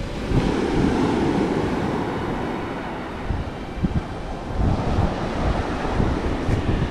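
Ocean waves breaking on a beach as a steady hiss, with wind buffeting the microphone in uneven low rumbles.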